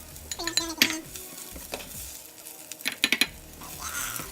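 A utensil scrapes and clinks against a frying pan as sautéed onions and bell peppers are moved into a glass bowl, with a light sizzle from the hot pan. There are several sharp clinks, the loudest cluster a little after three seconds.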